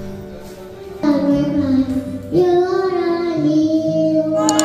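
A young child singing karaoke into a microphone over a backing track, holding one long note through the second half.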